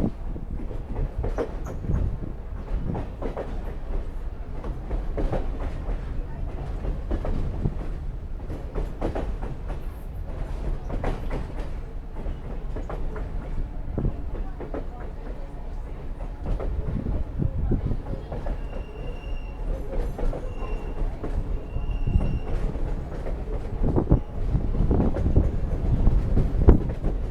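Train rolling along the track: a steady low rumble, with the wheels clicking and knocking irregularly over the rails. Three brief high-pitched tones, about two-thirds of the way through, fit wheel squeal.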